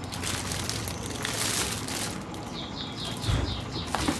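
Plastic wrapping around a laptop charger crinkling as it is handled, then a soft thump as it is set down. Over this, about halfway through, a bird gives a rapid run of short high chirps, about five a second.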